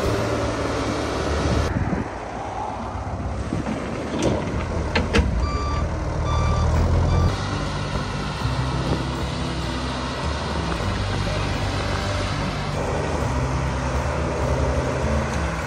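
Wheel loader's engine running as it works, with a few short reversing-alarm beeps about halfway through. A couple of sharp knocks come just before the beeps.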